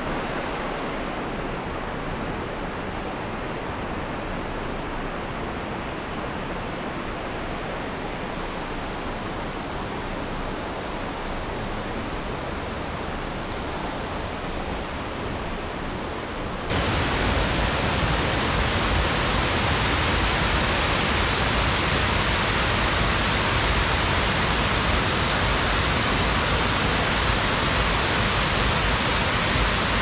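Waterfall water rushing in a steady, even noise. About two-thirds of the way through it turns suddenly louder and sharper, as if heard much closer to the falls.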